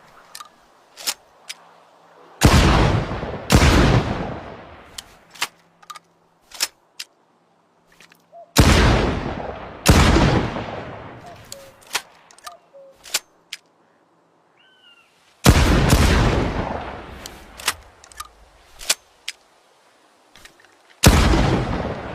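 Shotgun sound effect: loud blasts about every six seconds, each ringing out and fading over a couple of seconds, with short sharp clicks scattered between the shots.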